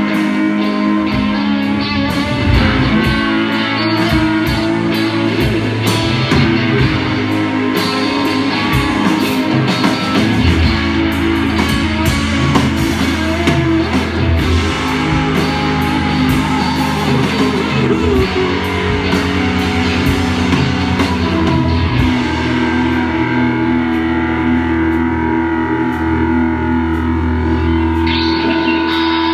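Live rock band playing electric guitar, bass guitar and drum kit. The cymbals and drums thin out over the last few seconds, leaving held guitar and bass notes.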